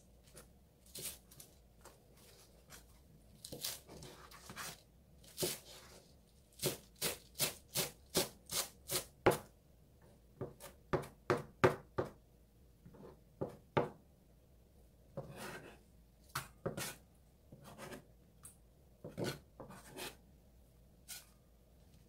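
Kitchen knife chopping green onions on a plastic cutting board: a series of sharp knocks, with a quick, even run of about three cuts a second a third of the way in, then slower, irregular cuts.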